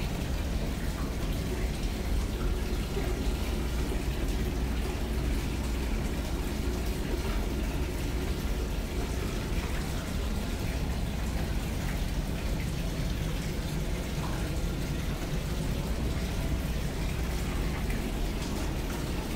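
Steady splashing of water running into a ship's open-air bath, over a constant low rumble.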